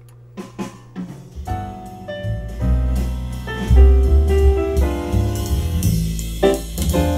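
Music with drums and piano played through a vintage Pioneer SX-980 stereo receiver and its speakers. It starts with drum hits about half a second in and gets louder over the next few seconds as the volume is turned up. The receiver is playing normally, which the repairer takes as the fault repaired.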